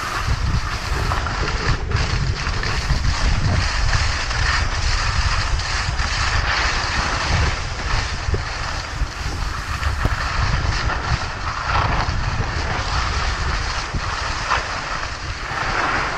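Skis hissing and scraping over hard-packed snow during a fast run, with heavy wind buffeting on the microphone. The scraping swells now and then.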